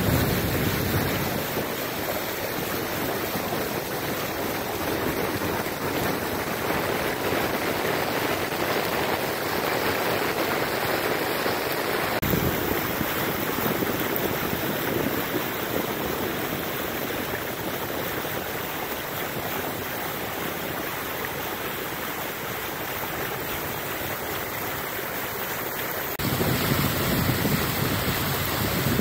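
Steady rush and splash of river water as a cruising boat's bow plows through it under way. Near the end it turns louder, with more low rumble.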